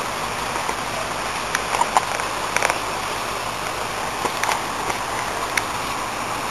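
Heavy rain falling steadily, an even hiss, with a few short sharp ticks now and then.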